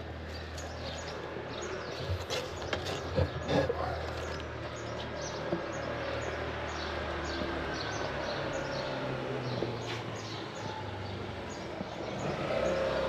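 A low steady rumble with a small bird chirping over it, short falling chirps repeated about twice a second, and a few soft knocks in the first few seconds.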